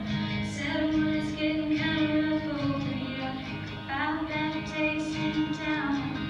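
Young female vocalist singing a country ballad over instrumental accompaniment.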